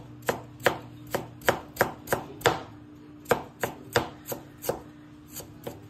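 Knife slicing green onions on a plastic cutting board: a run of sharp taps on the board, about three a second, with a short pause a little after halfway.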